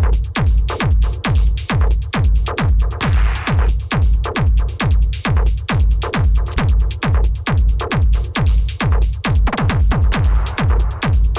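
Hard industrial electronic dance music: a heavy kick drum about twice a second, each kick dropping in pitch, with sharp percussion hits between the kicks.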